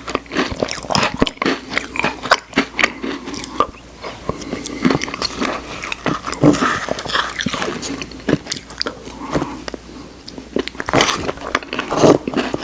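Close-miked mouth sounds of eating Oreo ice cream: chewing with many sharp, irregular wet clicks and smacks.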